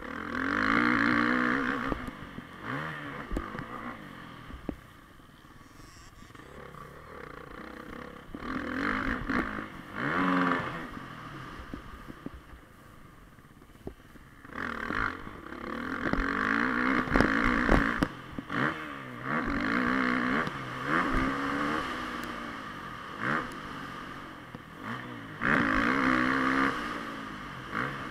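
Motocross bike's engine revving hard in bursts and dropping back between them, its pitch rising with each burst of throttle. Knocks and clatter come from the bike over the rough track.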